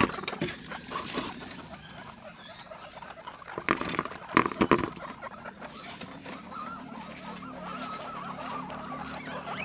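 Guinea pigs squeaking, with a cluster of several loud, short squeals about four seconds in.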